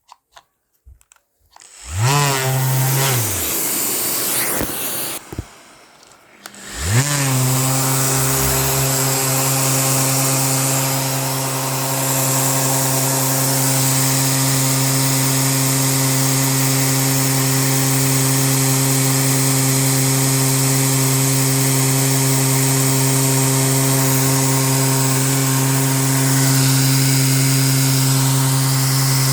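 Electric sander spinning up, running briefly and winding down, then starting again about seven seconds in and running steadily as it sands an epoxy resin and wood board.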